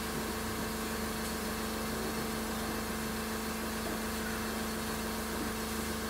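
Steady mechanical hum at a constant low pitch, over a faint low rumble.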